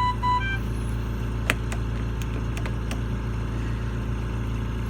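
Mechanical ventilator's electronic alarm: a short run of beeps that steps between pitches, stopping about half a second in. It sounds over a steady low machine hum. A sharp click comes about a second and a half in, followed by a few fainter ticks.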